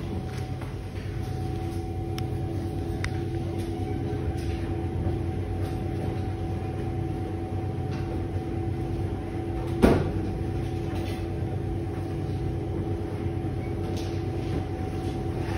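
Electrolux W4250S washing machine in its prewash, the drum tumbling a wet double duvet: a steady motor hum over a low rumble, with a few faint clicks. A single sharp knock stands out about ten seconds in.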